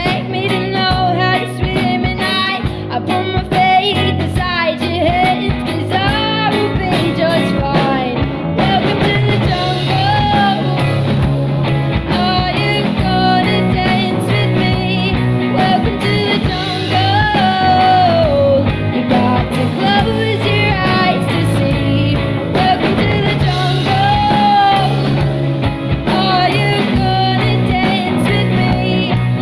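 Rock song playing: a voice sings a gliding melody over electric guitar and a full band.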